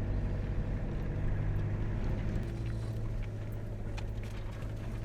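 Vehicle engine running: a steady low hum with scattered light clicks and knocks, typical of a Toyota Hilux heard while on the move.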